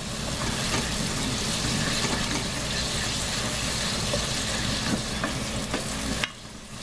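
Water and meat drippings sizzling and bubbling in a hot pot while a wooden spoon stirs and scrapes the browned bits off the bottom to deglaze it. The sizzle drops away suddenly near the end.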